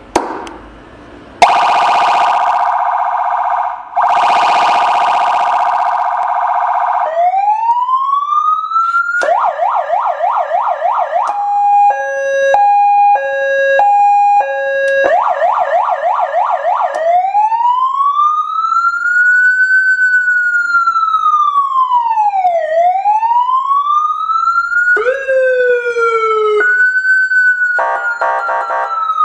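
Electronic emergency-vehicle siren cycling through its tones: two harsh horn blasts, then a rising wail, a fast yelp, and a hi-lo two-note pattern about one note a second, about 3 s long. It then runs another yelp and a slow wail rising and falling, and near the end a quick stepped sweep and another buzzing burst.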